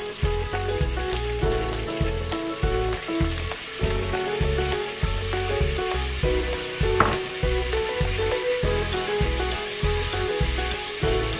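Bean sprouts and peppers sizzling in a hot wok as they are added and stirred, with one sharp click about seven seconds in. Background music with held notes and a steady bass line plays throughout.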